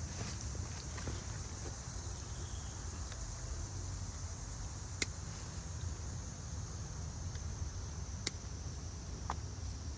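Outdoor garden ambience: a steady high insect buzz over a low rumble, with a few sharp clicks about five, eight and nine seconds in.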